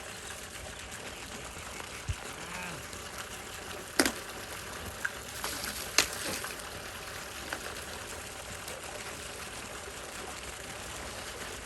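Water running and splashing steadily, with two sharp knocks about two seconds apart.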